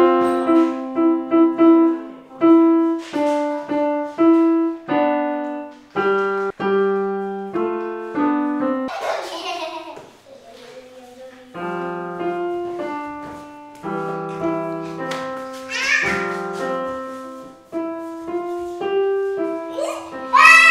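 A child playing a simple tune on a Yamaha piano, one note at a time over a few lower notes, with a short pause partway through. Children's voices cry out briefly a few times over the playing, loudest near the end.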